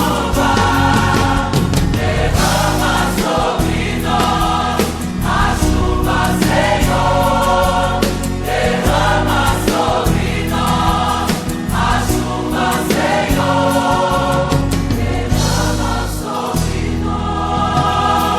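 Gospel worship backing track, transposed two tones down: a choir sings repeated phrases over a full band with a steady beat.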